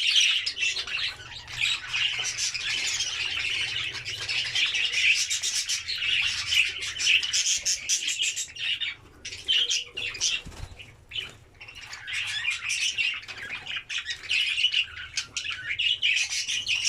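A flock of budgerigars chattering and chirping continuously, a dense warbling of many birds at once, with occasional squawks and wing flaps.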